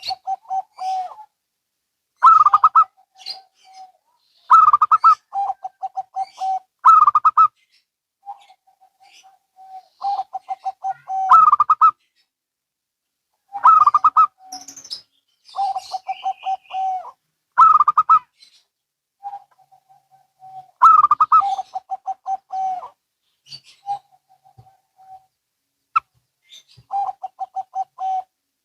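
Zebra doves (perkutut), local and Bangkok strains, singing back and forth: each song starts with a louder, higher note and runs into a quick string of pulsed cooing notes, a new phrase every couple of seconds.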